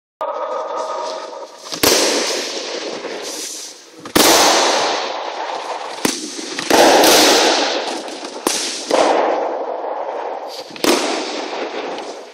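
Escrima sticks cracking together in sparring: about six sharp, irregular clacks, each ringing out in a long echo around a large hall.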